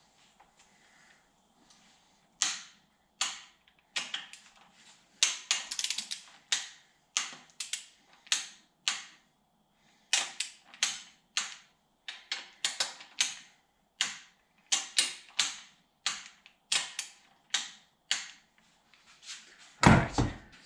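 Socket ratchet clicking in short, uneven strokes, about two a second, as nuts are tightened down on an engine.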